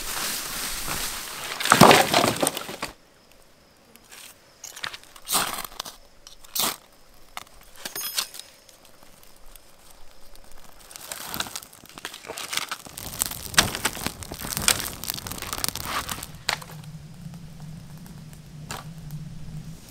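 Footsteps brushing through ferns and undergrowth, then a campfire being built and lit: scattered sharp snaps of dry twigs and kindling, and crackling as the flames catch near the end.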